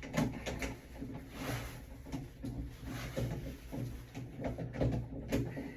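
Scattered clicks and light knocks of a screwdriver and small parts being handled close up, with a brief scrape about one and a half seconds in, as a screw is worked at an awkward angle.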